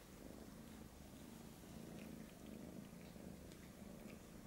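Domestic cat purring faintly, a low steady rumble, with small soft clicks of one cat licking another cat's fur.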